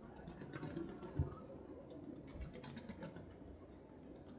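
Faint scattered clicks and light rustling over a low hum, with one soft thump a little over a second in.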